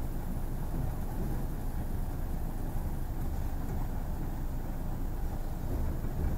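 ED4M electric train in motion, heard from inside the passenger car: a steady low running rumble.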